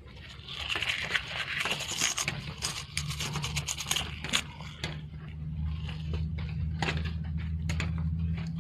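Scraping and irregular clicking over a steady low hum that starts about two seconds in.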